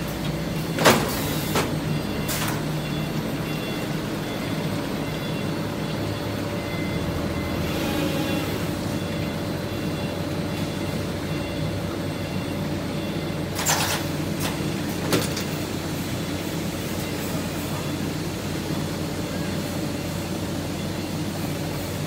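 Automatic multi-head liquid filling line running, a steady machine hum. A few short hisses of compressed air from its pneumatic cylinders cut through it, the loudest about a second in and two more in the middle.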